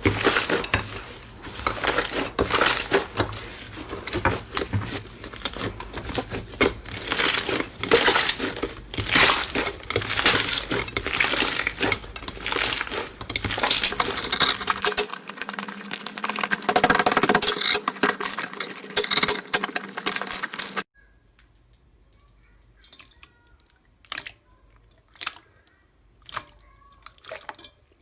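Slime being squeezed and pressed by hand, with dense crackling clicks and pops. About three quarters of the way through it cuts to a much quieter clip with only scattered sticky clicks.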